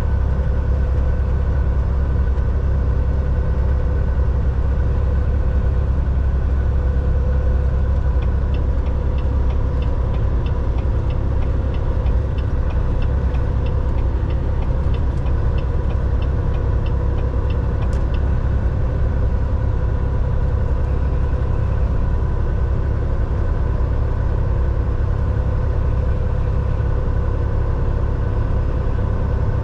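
Volvo semi truck's diesel engine and drivetrain running at a steady drone, heard from the cab, with a deep rumble under a few steady tones. From about eight seconds in, for about ten seconds, a light regular ticking sounds at about two a second.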